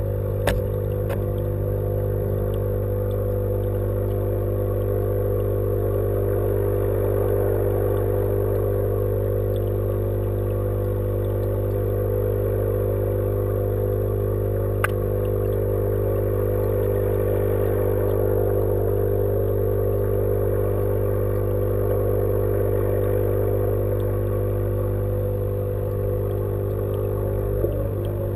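Steady electric hum built on the mains frequency, unchanging throughout, with three sharp clicks: about half a second in, midway, and near the end.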